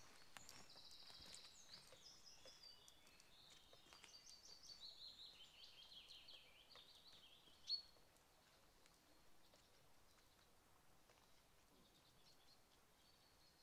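Faint songbird song: a run of high notes that step gradually down in pitch over several seconds and end in one short, louder note about eight seconds in, with a few faint footsteps at the start. After that, near silence of still woodland.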